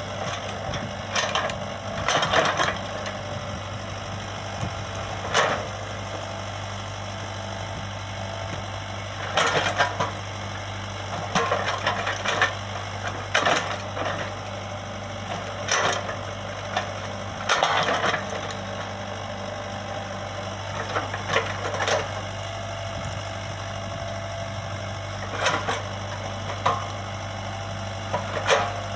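Komatsu PC75UU excavator's diesel engine running steadily, with short, louder, sharp bursts of working noise every one to four seconds.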